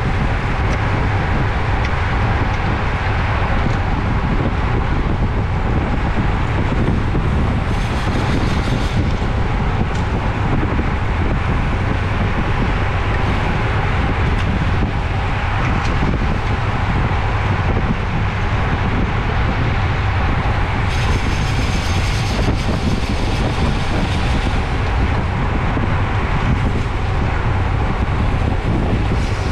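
Steady, loud wind rush over a bike-mounted camera's microphone as a road bike is ridden at race speed, with a deep rumble from the road. It is joined twice by a brief higher hiss or buzz.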